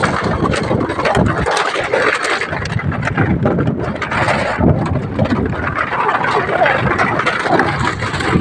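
Motorcycle ridden slowly over a bamboo bridge, its engine running under a continuous clatter of the loose bamboo deck knocking and rattling beneath the tyres.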